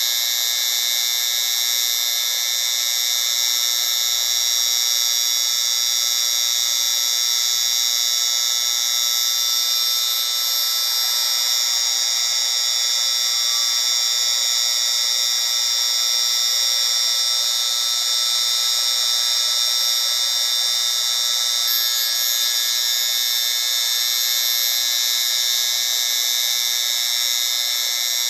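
Steady, high-pitched noise track made for tinnitus masking: an even hiss with several steady high whistling tones laid over it and almost no bass, unchanging throughout.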